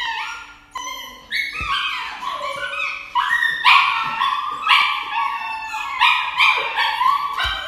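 A dog crying out in distress at an injection: a string of high yelps and whining cries, one after another, some sliding down in pitch.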